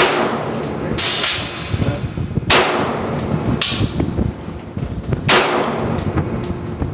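Rifle shots from an M4/AR-style carbine fired one at a time at irregular intervals: four loud cracks, each followed by a rolling echo, near the start, about a second in, about two and a half seconds in and past five seconds. Shorter, sharper cracks come in between.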